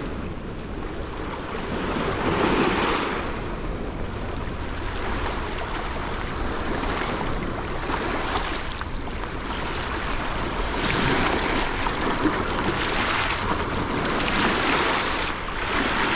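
Choppy river water washing and splashing against a rocky shoreline in irregular surges, with wind buffeting the microphone.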